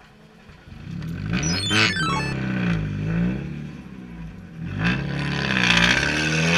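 Mazda Miata's four-cylinder engine heard from the cabin, revved up and down several times. A quick falling string of electronic beeps comes about a second and a half in.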